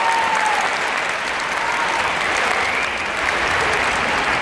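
A large audience applauding steadily, a dense, even sound with a few faint calls over it.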